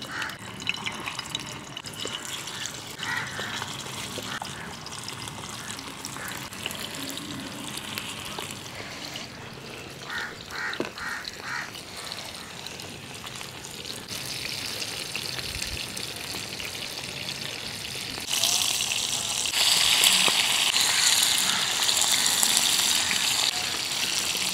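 Masala-coated fish frying in hot oil in a flat iron pan: a steady hiss and sizzle that grows louder about three-quarters of the way through.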